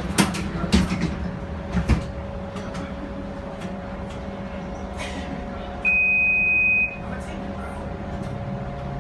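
Inside a Bombardier Flexity streetcar: a few knocks and clunks in the first two seconds, then one steady, high electronic beep lasting about a second, over the car's steady hum.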